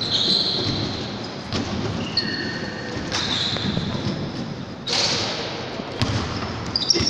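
Basketball game sounds: sneakers squeaking on the hardwood gym floor in several short, high squeals, with the thud of the ball bouncing and footfalls, in an echoing gym.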